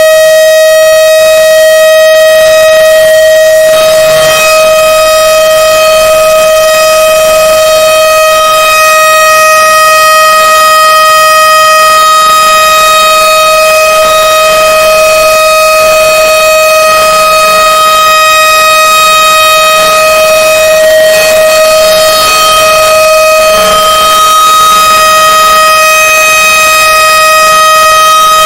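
Emergency alert alarm tone sounding loudly and continuously at one unchanging pitch, rich in overtones.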